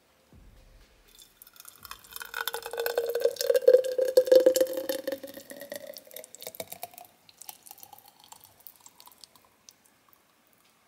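Green smoothie poured into a tall glass jar: a gurgling pour that starts about a second in, its tone rising as the jar fills, then thinning to a trickle and a few drips near the end.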